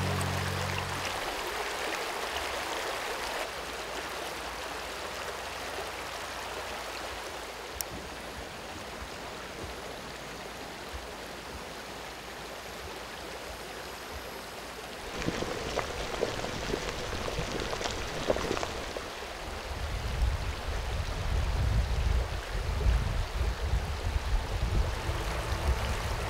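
Shallow river water running over stones, a steady hiss through the first half. About halfway through, a few sharp clicks from a lighter held at a canister camp stove, followed by an irregular low rumble.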